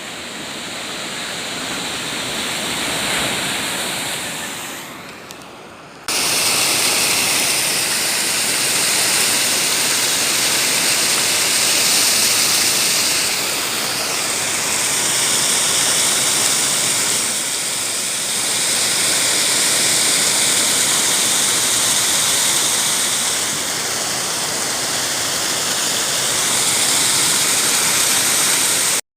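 Storm floodwater rushing in a steady, loud roar of noise. It swells over the first few seconds, then cuts abruptly about six seconds in to an even louder, steady rush that stops suddenly at the end.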